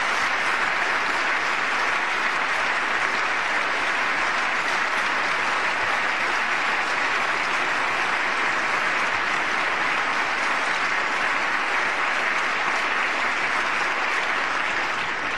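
Long, steady applause from a large audience in a hall, dying down near the end.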